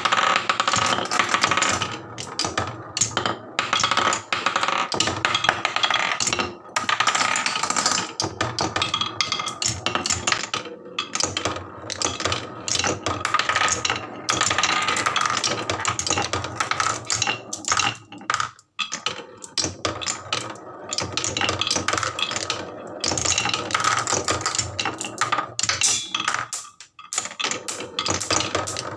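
Marbles rolling and clattering down HABA wooden slope tracks, a dense run of small hard clicks and rattles that thins out briefly around the middle.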